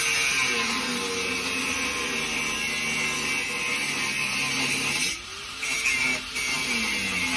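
A motor running steadily, its speed dipping and picking back up about five seconds in.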